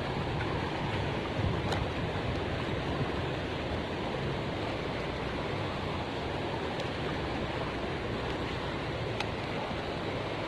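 A fast-flowing river rushing steadily, its water high after a recent flood, with a few faint ticks.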